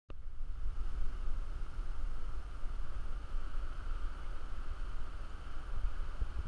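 Wind buffeting the microphone in an uneven low rumble, over a steady hiss of surf.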